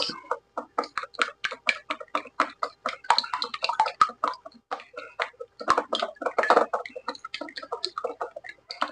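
Wooden chopsticks whisking a beaten egg in a ceramic bowl: a rapid, even run of clicks as the sticks strike the bowl, about four to five a second, thickening briefly a little past the middle.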